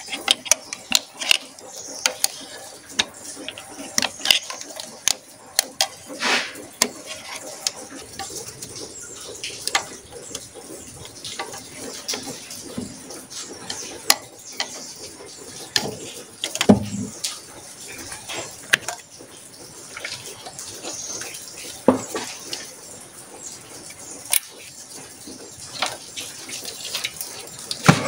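Irregular clicks, taps and light metallic clinks of hand tools and plastic fittings being worked on the intake side of a 1.9 MultiJet diesel engine during disassembly, with a couple of louder knocks about two-thirds of the way through.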